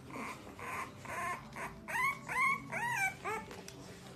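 Newborn puppies whimpering: a few short breathy whines, then about five quick squeals in a row, each rising and falling in pitch, about two to three and a half seconds in.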